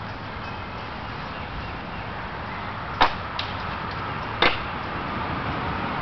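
Steady background noise with two sharp clicks about a second and a half apart, and a fainter click between them.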